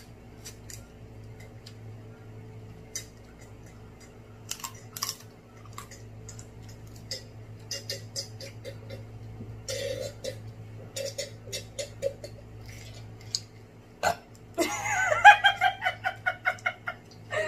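Scattered small clicks and mouth sounds of eating, then about fifteen seconds in a long, loud belch lasting nearly three seconds, going in rapid pulses.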